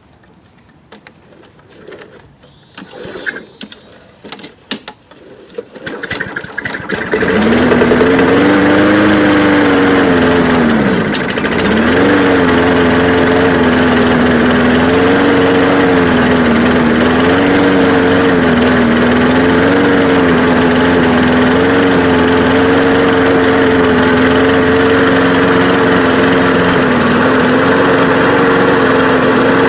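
Small walk-behind lawn mower engine: a few seconds of knocking and rattling, then it starts about seven seconds in and keeps running loudly. Its speed rises and falls unevenly and sags almost to a stall about eleven seconds in before picking up again. The mower is running rough: it doesn't run too good, but it does run.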